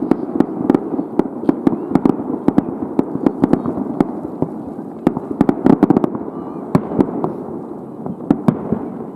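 Aerial fireworks display: a rapid barrage of shell bursts and crackles, several sharp reports a second over a continuous low rumble, thinning slightly near the end.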